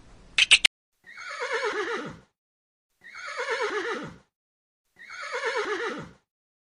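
Horse whinnying three times, the same falling, quavering whinny repeated about two seconds apart, after three quick high chirps in the first second.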